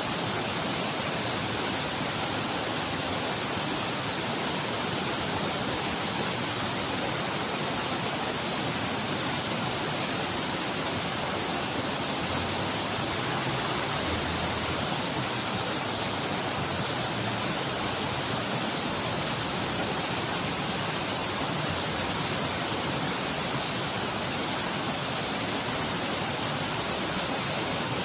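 Waterfall: a loud, steady rush of falling water with no breaks.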